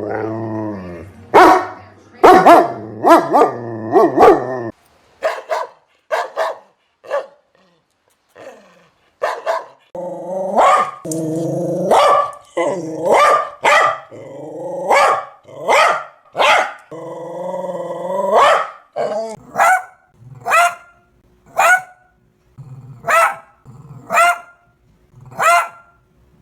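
Aggressive dog barking and growling: long growls broken by barks in the first few seconds and again through the middle, then a steady run of single barks about one a second near the end.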